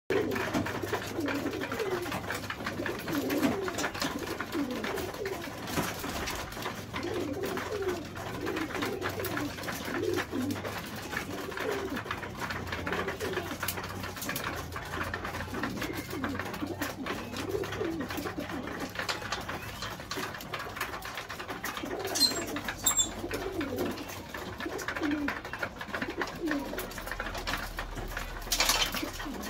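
Domestic homing pigeons cooing over and over, low and throaty, with a steady scatter of small clicks as they peck grain from a metal trough feeder. A brief louder rustle comes near the end.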